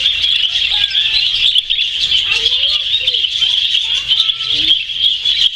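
A flock of budgerigars chattering: a dense, unbroken, high-pitched twitter from many birds at once.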